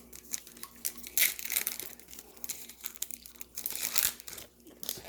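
A trading card pack's plastic wrapper being torn open and crinkled, with many sharp crackles.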